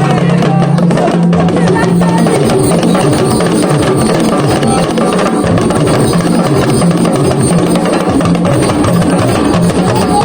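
Music with drums and percussion, playing steadily throughout.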